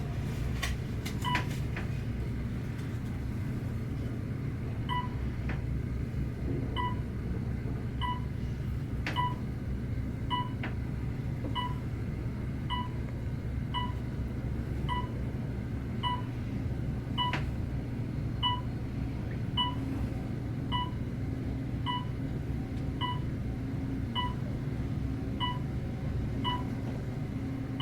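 Inside an elevator cab: a steady low hum, with a short electronic beep repeating about every 0.7 s from a few seconds in until near the end, and a few light clicks.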